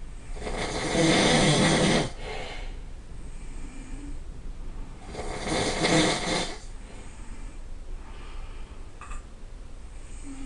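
A person snoring loudly: two long snores about five seconds apart, each under two seconds, with faint breathing between them.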